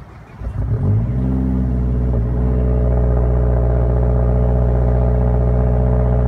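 Mazdaspeed3's turbocharged 2.3-litre four-cylinder engine starting: it catches about half a second in, revs up briefly, then settles into a steady idle.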